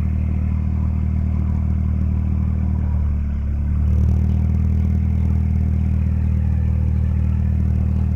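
Small engine idling steadily, with a brief dip and wobble in its note about three seconds in before it settles back, a little louder.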